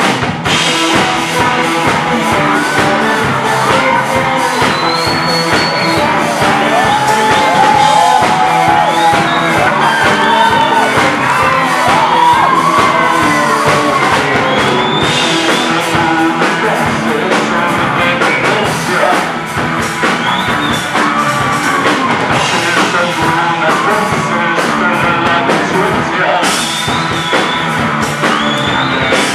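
Live punk rock band playing a song at full volume: electric guitar, bass guitar and drums, with a singer half-singing, half-shouting the vocals. The band comes in loud right at the start.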